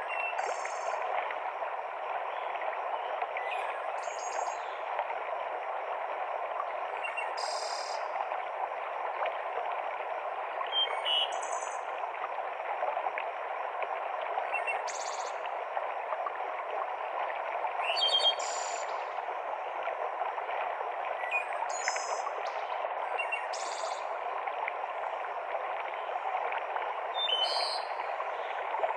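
Forest mountain stream cascading over rocks, a steady rush of water, with songbirds giving short high calls every couple of seconds above it.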